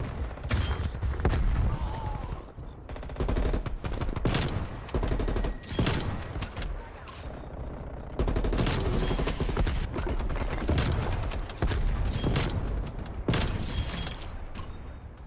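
Video game gunfire: repeated bursts of rapid automatic weapon fire, many shots a second, in a first-person shooter match.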